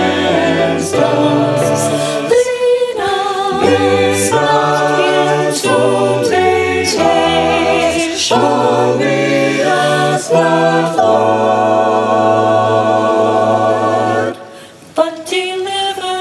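Unaccompanied voices singing in harmony, choir-like. A long chord is held from about eleven seconds in, breaks off briefly at about fourteen seconds, and then the singing resumes.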